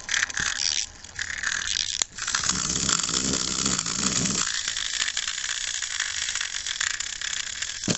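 Barbie-size wind-up toy telephone: its clockwork is wound with ratcheting clicks, then about two seconds in its tiny internal bell starts ringing rapidly and keeps going steadily, like a little phone ringing.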